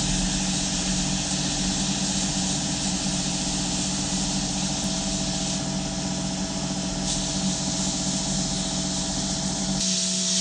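Abrasive blasting in a sandblasting cabinet: a steady hiss of grit from the hand-held nozzle striking a rusty steel pincer, with a steady machine hum under it that cuts off near the end.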